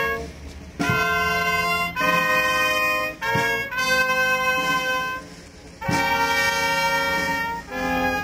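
Slow brass music led by a trumpet, long held notes in unhurried phrases with brief breaks between them.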